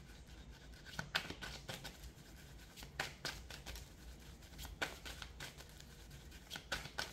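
Faint, scattered clicks and light rustling of tarot cards being handled on a table, about a dozen small sharp ticks at irregular intervals.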